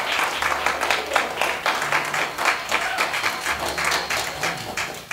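Audience applauding, a dense run of hand claps that tapers off near the end.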